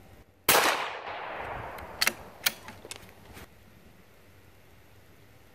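A single rifle shot from a heavy-barrel Savage .17 HMR bolt-action rimfire rifle about half a second in, its report echoing away over about a second. A few sharp metallic clicks follow as the bolt is worked to eject the case and chamber the next round.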